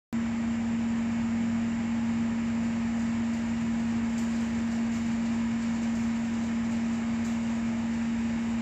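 A steady machine hum with one strong low tone and a constant hiss, cutting in suddenly just after the start and holding an even level throughout.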